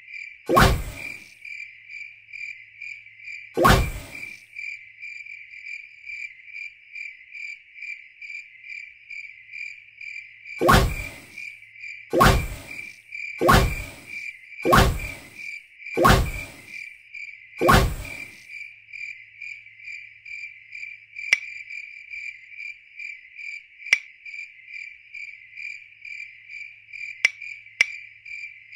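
Steady cartoon-soundtrack cricket chirping, with eight loud, short sound-effect hits as the mushroom teleports and bounces: two about three seconds apart near the start, then six in quick succession about a second and a half apart. A few faint clicks follow near the end.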